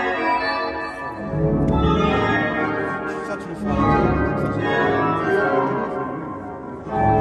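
Newly assembled church pipe organ sounding held chords, its pipes not yet tuned or voiced; deep bass notes come in about a second in and the chord changes several times.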